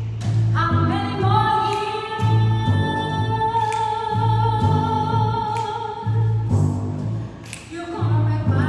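A woman sings long held notes that slide between pitches over a repeating bass line on an upright double bass. Both drop away briefly about seven seconds in before the bass picks up again.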